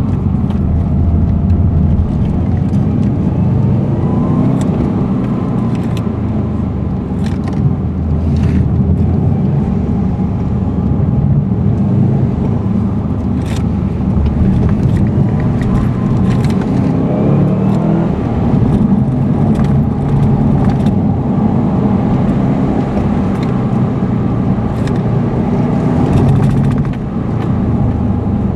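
Subaru Impreza's engine and road noise heard from inside the cabin while driving, a steady low drone that swells and eases with the throttle. Scattered short clicks and ticks sound over it.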